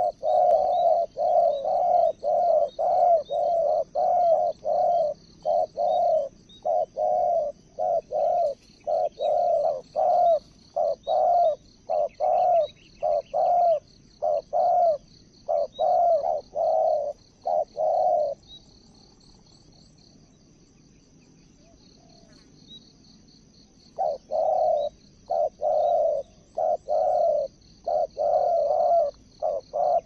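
Spotted doves cooing in a fast, unbroken run of coos, about two a second, falling silent around 18 seconds in and starting again about six seconds later. A steady high insect buzz runs underneath.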